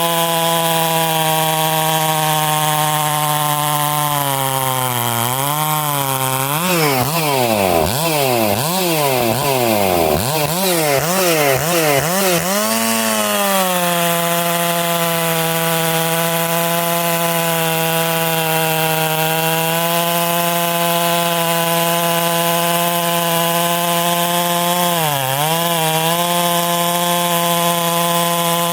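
Stihl 461 two-stroke chainsaw with a full-skip chain running at high revs while cutting wood. Its pitch wavers rapidly up and down for several seconds about a quarter of the way in, then holds steady apart from a short dip near the end.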